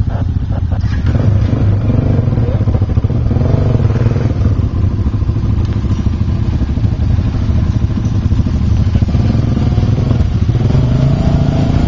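ATV engines running loudly, a steady low drone with the pitch wavering a little and rising slightly near the end.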